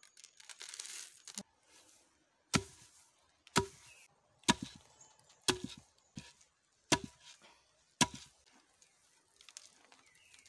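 Wooden pestle pounding dried coffee in a log mortar, six sharp knocks about a second apart, cracking the dry husks off the beans.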